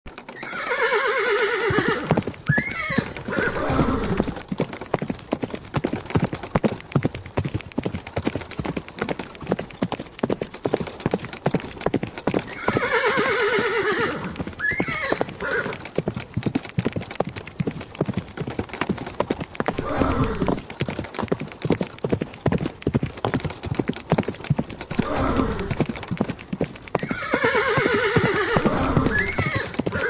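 Horse and chariot: rapid hoofbeats run throughout. The horse neighs three times, near the start, about halfway through, and near the end.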